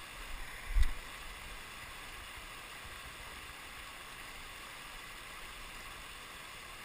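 Mountain stream rushing steadily over a shallow rocky riffle, with a single low thump a little under a second in.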